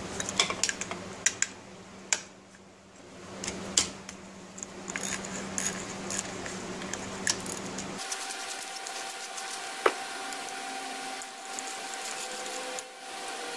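Ratchet wrench and socket clicking irregularly with light metal clinks as the nut holding the outboard's recoil starter is backed off. The clicks thin out to a few ticks in the second half.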